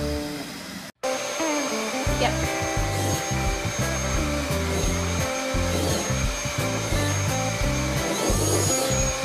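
Background music with a steady beat. From about a second in, after a brief dropout, a vacuum cleaner runs underneath it with a steady high whine.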